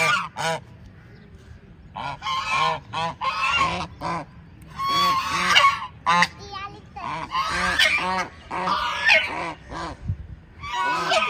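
Domestic geese honking in repeated bursts of calls, with a short lull about a second in.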